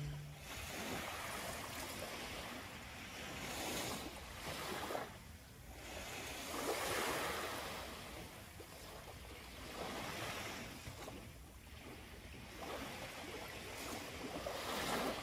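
Small waves washing onto a sandy beach, swelling and falling back softly every three seconds or so.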